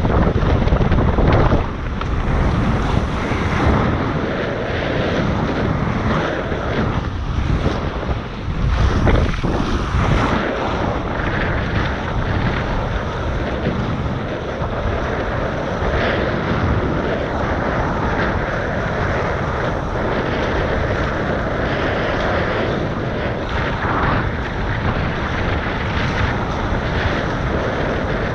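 Wind buffeting the microphone over water rushing past the hulls of a Tornado racing catamaran sailing fast. It is gustier in the first couple of seconds and again around nine seconds in.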